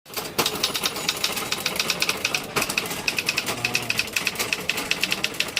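Typewriter being typed on quickly: a fast, even run of key strikes, about seven a second, with a couple of heavier clacks among them.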